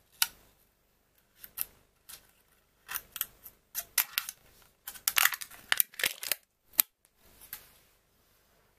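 Foil lid being peeled off a plastic pudding cup: a run of crisp crinkles and crackles, sparse at first and densest about five to seven seconds in, stopping as the lid comes free.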